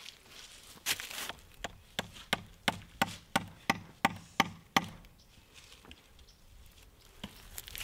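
A mallet hammering the end of a steel pen mandrel to drive it into the end grain of a log: about a dozen sharp knocks, roughly three a second, stopping a little before the halfway point.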